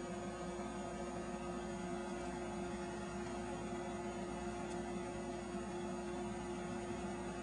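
Steady electrical hum with a constant hiss underneath, unchanging throughout.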